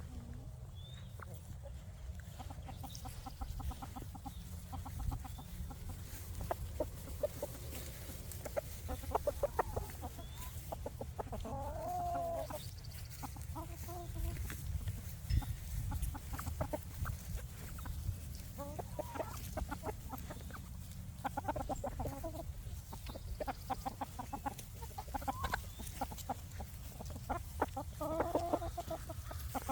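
Free-range chickens clucking on and off, with a few longer drawn-out calls standing out about twelve seconds in, again soon after, and near the end, over a steady low rumble.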